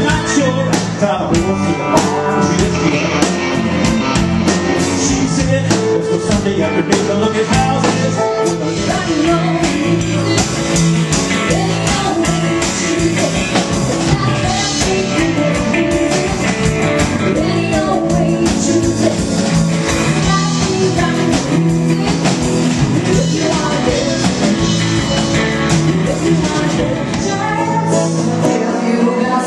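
Live country music from a full band: singing over guitars, fiddle, bass and a steady drum beat. Near the end the bass and drums drop out, leaving a woman singing with an acoustic guitar.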